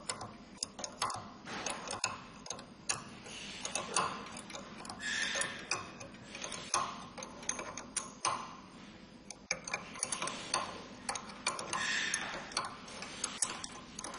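A wrench turning the extractor nut on a threaded pin, giving a run of irregular metal clicks with short scraping stretches, as the nut draws the inlet filter out of its seat in a Denso common rail injector body.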